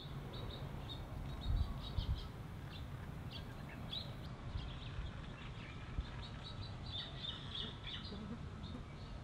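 Small birds chirping and twittering in short, scattered calls over a steady low background rumble, with two low thumps about a second and a half and two seconds in.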